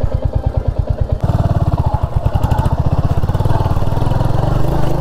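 Royal Enfield Hunter 350's single-cylinder engine running at low revs with a steady, even beat while riding slowly over a rough dirt track. About a second in the sound cuts abruptly to a closer, fuller engine sound.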